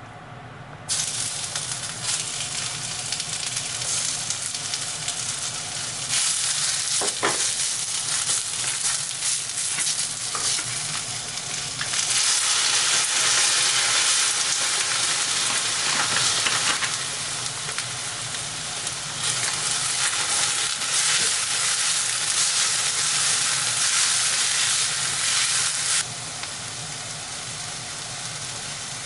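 Hamburger steak patties frying in a pan, a steady sizzle that starts about a second in and gets louder and quieter in steps.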